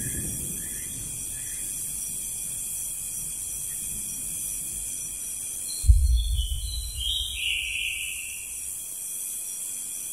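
Electronic end-screen sound effects. A steady high hiss with faint tones runs throughout, then about six seconds in there is a sudden low boom and a short run of electronic tones stepping down in pitch.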